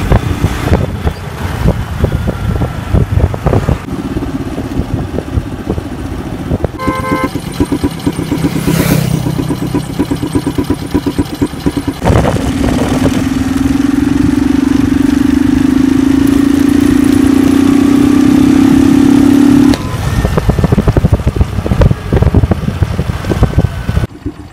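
Honda Twister 110cc single-cylinder four-stroke running on the road with its air filter removed, which gives it a louder, racier intake note. From about twelve seconds in, the revs hold high and climb slowly for several seconds, the loudest stretch, then drop back. A horn sounds briefly about seven seconds in.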